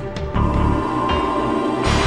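Dark, suspenseful soundtrack-style music: held tones over a pulsing low beat, which drops out briefly at the start and comes back in about a third of a second later.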